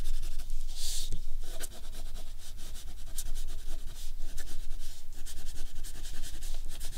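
Wax crayon scraping on paper in rapid back-and-forth strokes as an area is shaded in, with one brighter scrape about a second in.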